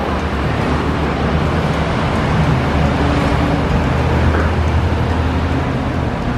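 A vehicle engine running steadily, a loud constant drone over a low hum.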